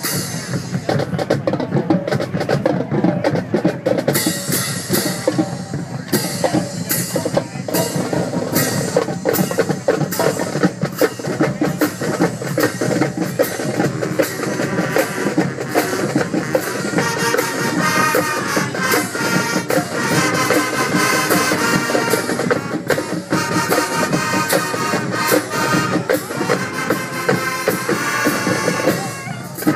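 Marching band playing: brass over marching drums, the drum strikes prominent throughout, with the brass growing stronger about halfway through.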